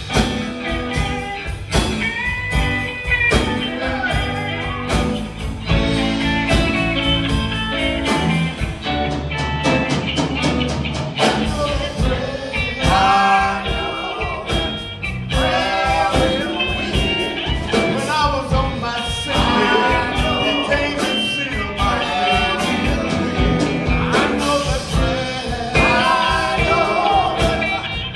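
Live gospel band playing: electric guitars and a drum kit keeping a steady beat, with singing voices over the band, stronger in the second half.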